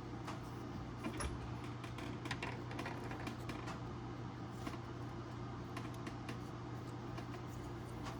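Scattered light clicks and taps of small parts being handled, heard over a steady low hum.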